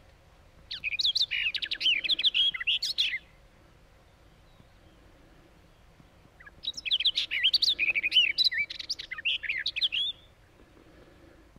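Barred warbler singing two phrases of fast, varied warbling, each a few seconds long, with a pause of about three seconds between them.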